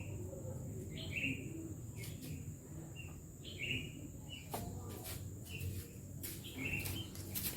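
A bird chirping repeatedly, short high notes about once a second, with a few sharp clicks and a low hum behind.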